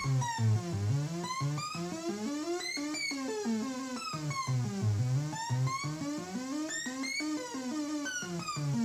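Future Sound Systems Brunswick synthesizer playing a sequencer-driven run of stepped pitches, bright with overtones, the notes running into one another without silences because only the pitch is controlled and the sound is ungated. The up-and-down phrase repeats about every two seconds.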